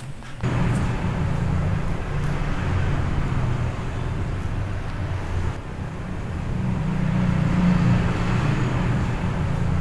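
Toy fire truck being pushed and rolled along the floor: its plastic wheels make a steady low rumble that swells and eases slightly.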